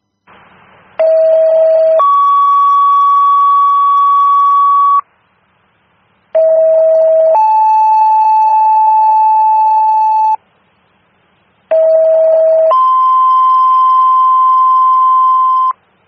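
Two-tone sequential fire-alerting tones over a scanner radio: three pairs, each a lower steady tone of about a second followed by a higher tone held for about three seconds, the second tone at a different pitch in each pair. The tones page the fire companies ahead of a dispatch.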